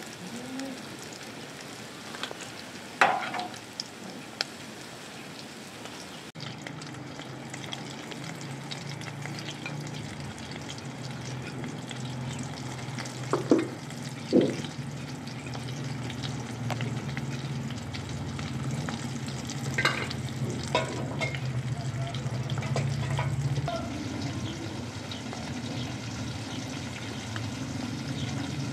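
Small breaded fish frying in a pan of oil: a steady sizzle, broken by a few short, sharp clinks of utensils.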